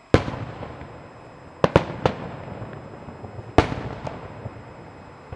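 Aerial fireworks shells bursting: a sharp bang just after the start, a quick run of three about a second and a half later, and another about three and a half seconds in, each followed by a fading echo.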